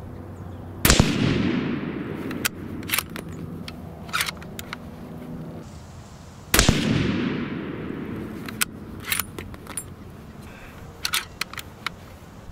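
Two shots from a .30-06 Remington 700 ADL bolt-action rifle, about six seconds apart, each trailing off in a long echo. Between them come short metallic clicks as the bolt is worked and spent brass is ejected.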